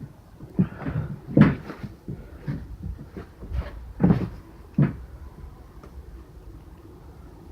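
Irregular clunks and knocks from handling the pellet rifle, the two loudest about a second and a half in and about four seconds in.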